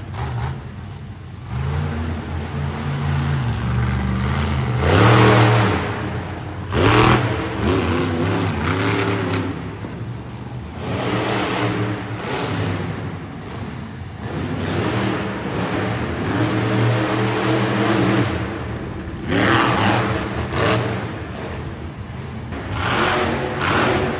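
Monster truck engines revving hard, their pitch climbing and falling with the throttle, with several loud surges as the trucks accelerate and jump.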